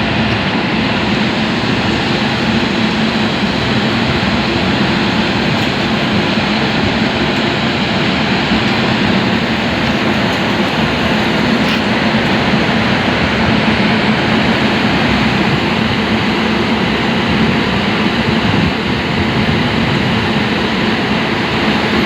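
Indian Railways locomotive standing and humming: a loud, steady hum with a low drone and an even hiss, unchanging throughout.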